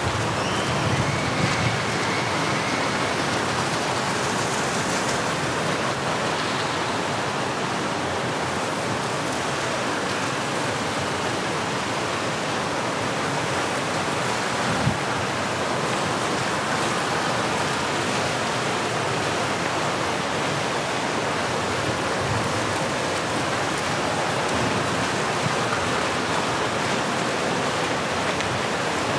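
Steady rushing water: an even, unbroken hiss.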